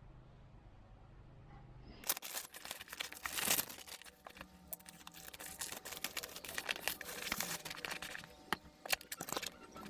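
Crinkling and rustling with many small clicks and crackles, starting about two seconds in after a faint hum.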